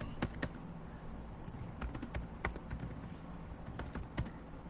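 Irregular clicks and taps of a computer keyboard and mouse, about seven scattered over a few seconds, above a low steady hum.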